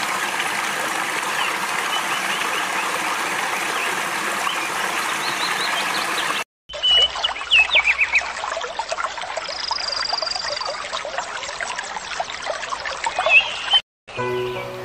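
Running stream water with small birds chirping over it, in two stretches broken by a moment of silence about six and a half seconds in; the second stretch has denser chirps and a brief high trill.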